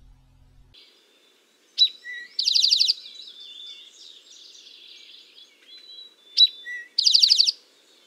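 Eastern towhee singing its 'drink-your-tea' song twice: each time a sharp high note, a short lower note, then a fast buzzy trill. Fainter chirps fill the gap between the two songs.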